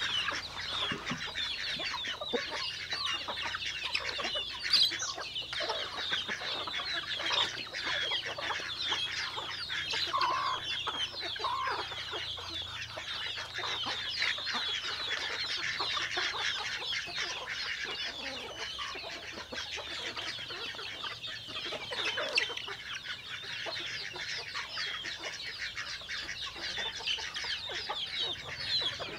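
A flock of chickens calling continuously, many short high-pitched calls overlapping.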